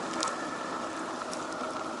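Steady hiss of rain falling on a city street, with a couple of faint ticks.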